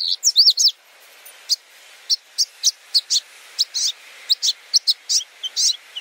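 Small birds chirping: a quick run of high chirps in the first second, then single chirps every half second or so.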